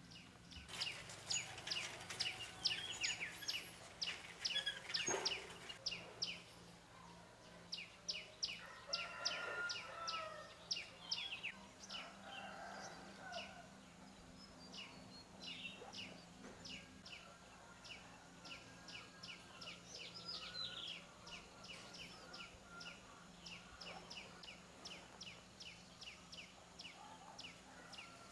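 Birds chirping: a steady run of short, sharp high chirps, about two to three a second, with a few softer, lower calls mixed in through the middle. A faint steady low hum sits underneath.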